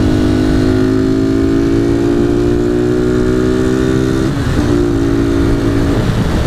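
Honda Titan 150 carbureted single-cylinder engine with a Gemoto sport exhaust running under load, its note rising slowly, with a short break about four seconds in before it picks up again. A steady wind rumble in the helmet runs underneath.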